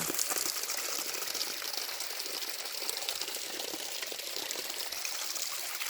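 Spring water running and splashing steadily, a continuous hiss of flowing water.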